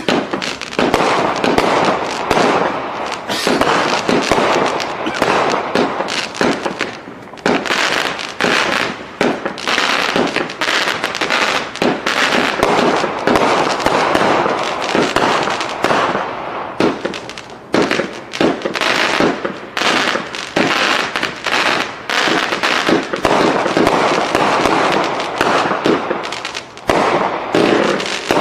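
Sunwing 'Sweet Shots' consumer firework firing a dense, continuous barrage of bangs and crackles, with a few brief lulls between volleys.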